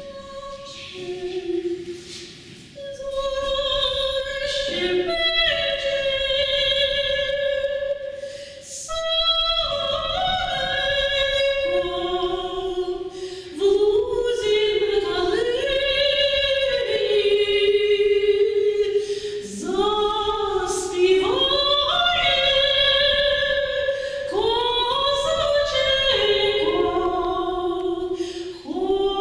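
A vocal ensemble singing a Slavic folk song in several parts, with long held notes and short breaks between phrases.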